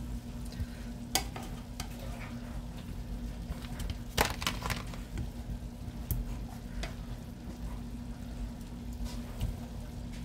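Chicken and vegetables sizzling in a skillet, with a few sharp utensil clicks, the loudest about one and four seconds in, over a low steady hum.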